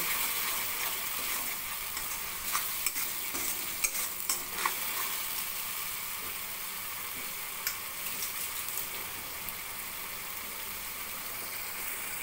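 Spice paste of onion, garlic, ginger, chilli and tomato sizzling as it fries in oil in a metal kadai: a steady frying hiss. A metal spatula scrapes and taps against the pan at times, mostly in the first half.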